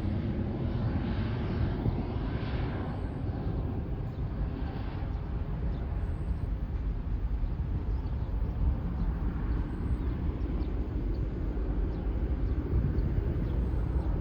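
Boeing 737-800 airliner's twin CFM56-7B jet engines running: a steady low rumble with a hiss that thins out after the first few seconds.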